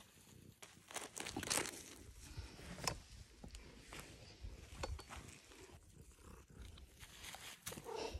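Faint, irregular rustling and crinkling as a cat rubs its face in and chews a catnip plant in a thin black plastic nursery pot, pushing the pot around on sandy ground, with a few louder crackles about one and a half and three seconds in.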